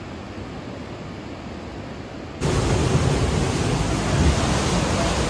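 Steady rushing noise of a swollen, flooded river, fairly soft at first and suddenly much louder about two and a half seconds in.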